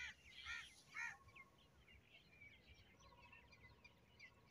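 A bird calling three times about half a second apart, each call a harsh arched note, followed by faint high chirping of small birds.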